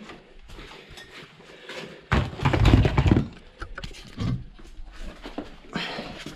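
Handling noise from unclipping a battery charger and lifting and carrying a heavy 12 V car battery: clicks and knocks, with a loud scraping clatter and deep thumps about two seconds in, and another knock near the end.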